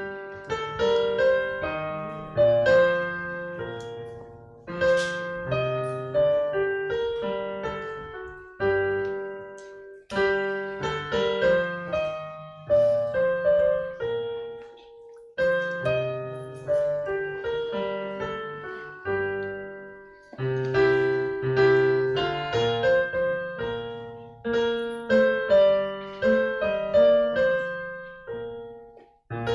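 Solo piano playing a slow piece: chords under a melody, in phrases of a few seconds that each fade before the next begins.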